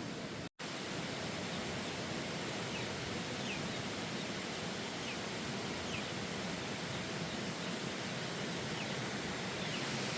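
A steady, even hiss of outdoor noise, like running water or rain, with a few faint short high chirps scattered through it. The sound cuts out for a split second about half a second in.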